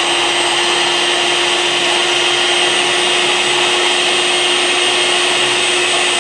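Handheld electric mixer running at a steady speed with an even whine, its beater whipping instant coffee, sugar and hot water in a plastic cup.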